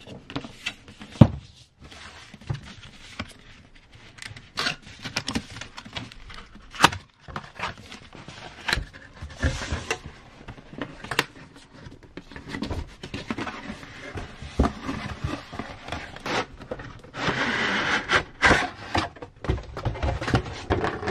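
Cardboard packaging of a Sennheiser HD6XX headphone box being handled: scattered taps and knocks with rubbing as the box is turned over, then a longer scrape near the end as the outer printed sleeve slides off the black inner box.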